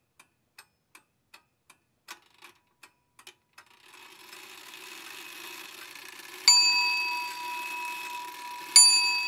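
Clock-like ticking, about three ticks a second, for the first three seconds or so. Then a steady hiss with a low hum comes in, and a bell dings twice, a little over two seconds apart, each ring held on.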